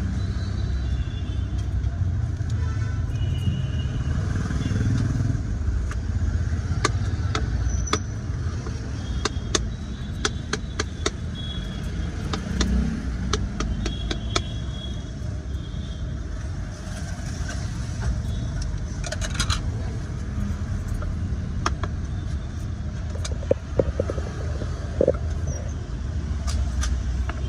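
Steady low rumble of street traffic, with a run of sharp knife taps on a plastic cutting board, clustered in the middle, as dragon fruit is chopped into cubes.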